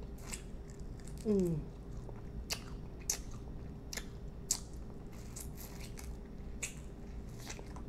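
Biting and chewing crispy lemon pepper chicken wings: small crunches and wet mouth clicks scattered throughout. About a second in comes one short vocal hum that falls in pitch.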